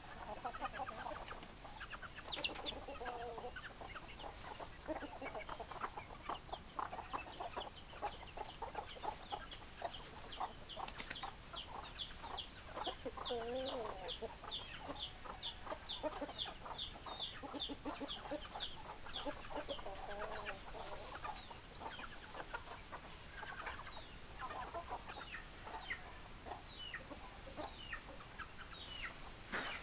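Domestic hens clucking steadily, with short clucks throughout. In the middle there is a long run of high, quick chirps at about two or three a second.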